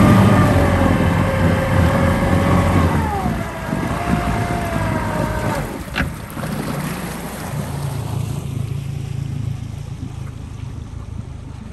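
Flats boat's outboard motor running under throttle, its whine dropping in pitch about three seconds in as it is throttled back, then cutting back to a low idle past the middle. A single sharp knock comes about halfway through.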